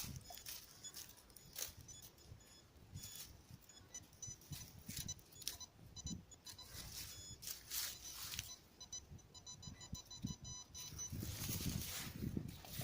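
Metal detecting in forest ground: irregular rustling and scraping of leaf litter and soil, with short, repeated high-pitched beeps.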